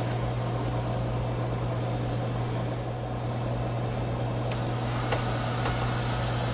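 Steady machine hum with a strong low drone, with a few faint light clicks about four to five seconds in.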